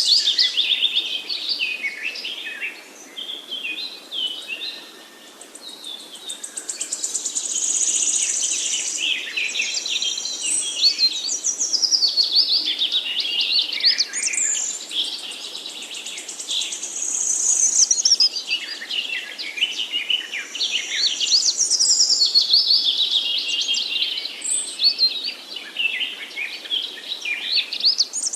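Several songbirds singing over one another in a woodland chorus, a steady stream of high chirps, whistles and trills with no break.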